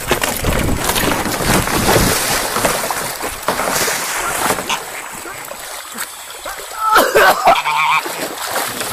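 An angry goose splashing and thrashing in the water beside a kayak for several seconds. About seven seconds in there are a few short, harsh pitched calls.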